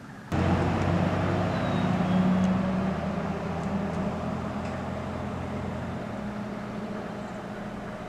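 A steady engine drone with a low hum, coming in abruptly just after the start and slowly fading away.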